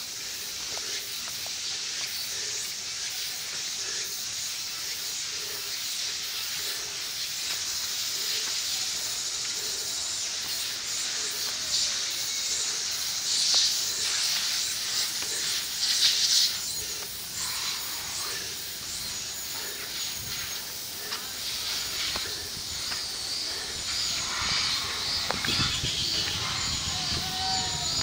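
A steady high hiss of insects in woodland, with faint footsteps on a dirt path and stone steps about once a second. In the second half, birds call with repeated short high chirps and a few lower gliding notes.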